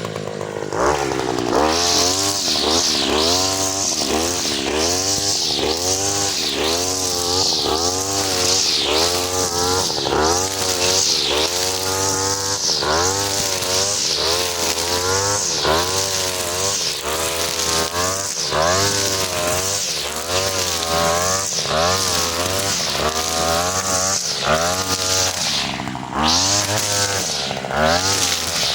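43cc two-stroke brush cutter running hard with a four-strand 2.5 mm nylon trimmer line head, its engine pitch dipping and rising again about once a second.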